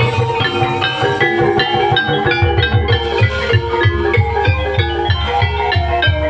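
Gamelan music accompanying a jaranan dance: struck metallophones playing a busy melody of short ringing notes, joined about two and a half seconds in by a steady low drum beat.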